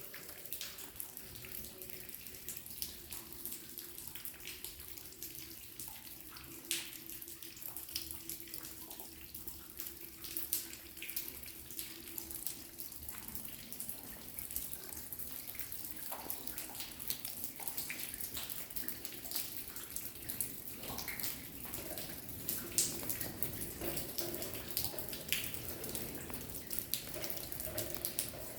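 Water dripping inside a tunnel: irregular drops land one after another, a few louder plinks standing out, over a steady high trickle or hiss.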